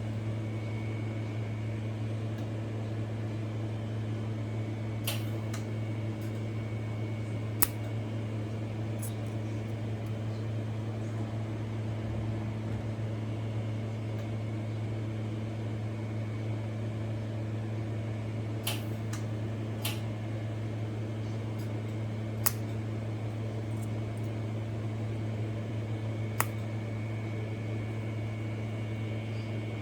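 Steady low electrical hum with a faint high tone, from the welding equipment's fan and transformer. About six brief sharp clicks are spread through it, the kind made by short spot-mode arc strikes on the thin sheet.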